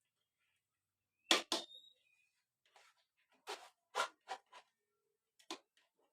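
A few sharp clicks and knocks of kitchen things being handled: a close pair about a second and a half in, then several more scattered over the next few seconds. No blender motor is running.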